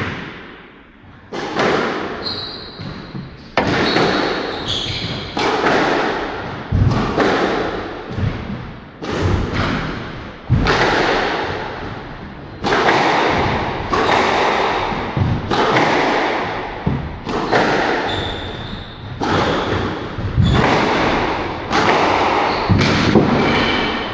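Squash rally: the ball smacked by rackets and hitting the court walls, loud sharp hits every second or so ringing in a reverberant court, with short high squeaks of court shoes in between.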